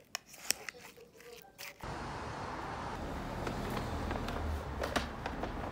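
A few light clicks and rustles of a parcel being handled, then, about two seconds in, a sudden switch to a steady, rumbling vehicle noise.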